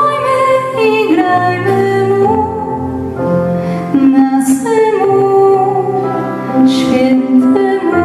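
A woman singing a Polish Christmas carol into a microphone, with long held notes that slide from one pitch to the next, over electric keyboard accompaniment.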